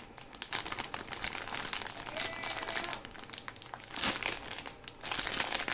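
Clear plastic packaging bag crinkling and rustling as a bagged soldering iron is handled and turned in the hands, in uneven bursts.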